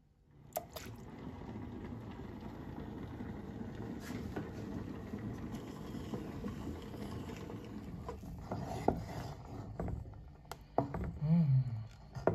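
Soup stirred in a pot with a wooden spoon: a steady watery churning of the liquid, with a few knocks of the spoon against the pot near the end and a short low sound that falls in pitch.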